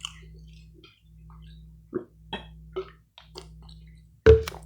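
A person chewing food close to the microphone, with scattered wet mouth clicks and one louder smack about four seconds in, over a low steady hum.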